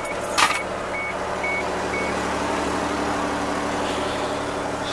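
A car's engine running at a steady hum from inside the cabin, while a high warning chime beeps about twice a second and stops about two seconds in. A single sharp knock sounds about half a second in.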